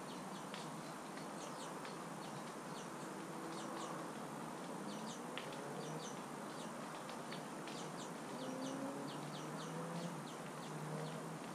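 Small birds chirping again and again in short high notes over a steady outdoor hiss.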